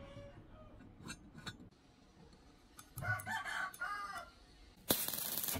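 A rooster crows in the background, a few arching calls from about three seconds in. Near the end a stick-welding arc is struck on the steel rebar, a short loud burst of crackling hiss that starts with a sharp snap. Earlier there are a couple of light clicks.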